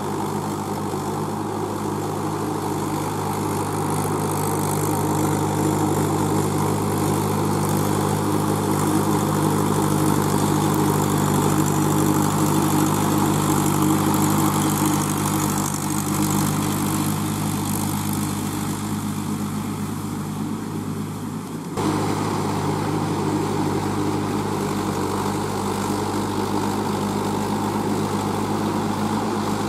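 Mahindra 475 DI tractor's four-cylinder diesel engine running steadily under load as its cage wheels drive it through deep paddy mud. It swells over the first dozen seconds, eases off, then steps back up suddenly about 22 seconds in.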